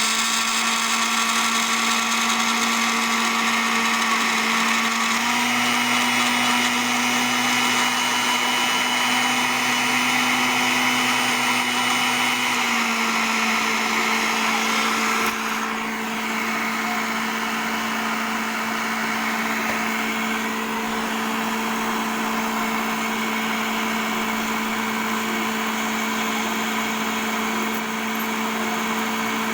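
Electric blender motor, under test after repair, running continuously with a steady hum. Its pitch shifts slightly a few times, and it gets a little quieter about halfway through.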